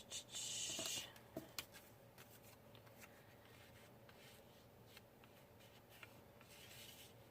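Paper being handled and slid on a work table: a short rustle lasting about a second, two light taps just after, then faint occasional handling noise.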